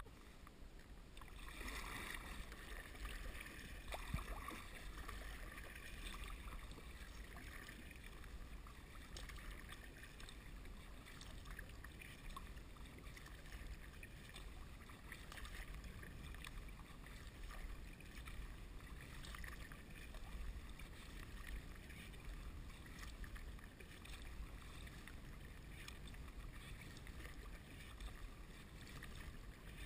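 Kayak paddle strokes dipping into calm water, faint splashing and dripping from the blade, over a low rumble of wind on the microphone. A single knock sounds about four seconds in.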